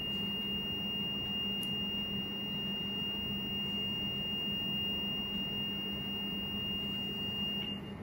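MWE3 grill's reed-switch beeper sounding one steady high tone, which cuts off suddenly near the end as the platen adjuster is wound anti-clockwise. The beep means the reed switch is picking up the platen magnet, and its stopping marks the point where the switch drops out.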